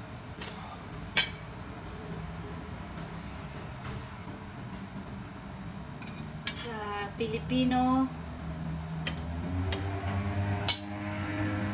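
Metal knife and fork clinking and tapping against plates while pancakes are moved and spread, with a loud clink about a second in and several more sharp clinks near the end.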